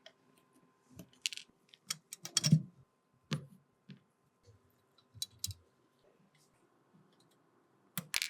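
Irregular light clicks, taps and knocks from small tools and parts handled at a workbench, spread unevenly, with a brief scraping rustle just after a second in and the loudest knock about two and a half seconds in, another loud pair near the end.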